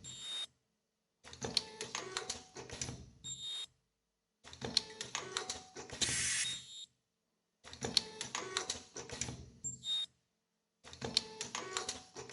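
Automatic computer-controlled nylon zipper film welding machine cycling through its feed-and-weld cycle, about every three seconds. Each cycle is a run of rapid mechanical clicks and clacks ending in a short high tone, and one cycle has a burst of hiss.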